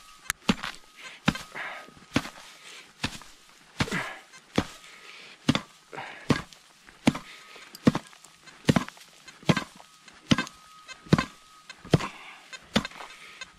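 A hand digging tool striking into the soil in a steady rhythm, a little more than one blow a second, digging out a metal detector target.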